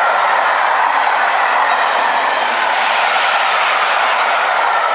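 A rake of passenger coaches running past at speed: a steady, loud rush of steel wheels on the rails with a steady ringing note in it. The last coach goes by near the end.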